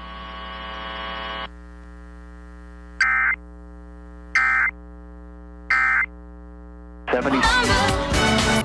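Emergency Alert System end-of-message signal: three short bursts of digital data tone about a second and a half apart, over a steady electrical buzz.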